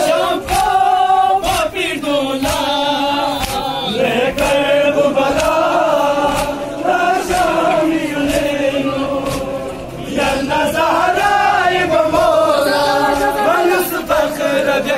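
A large crowd of male mourners chanting an Ashura noha together in a rising and falling melody, over regular sharp slaps of hands beating on chests (matam).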